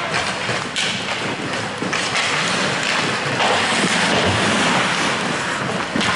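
Ice hockey game in play: a steady hiss of skates on the ice and rink noise, with a couple of sharp knocks of sticks or puck in the first two seconds.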